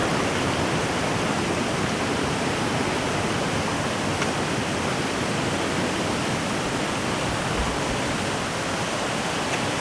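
Rushing water of a waterfall and river, a steady, even hiss that does not change.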